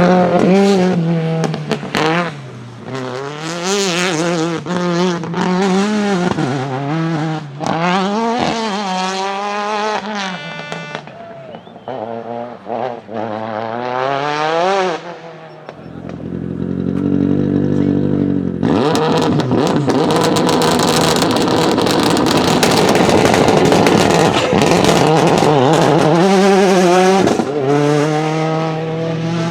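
Ford Focus WRC rally car's turbocharged two-litre four-cylinder engine revving hard, its note rising and falling over and over, with sharp cracks from the anti-lag system. About halfway through it settles briefly into a steadier lower note. Then comes a long stretch of loud rushing noise full of crackles, and the engine revs again near the end.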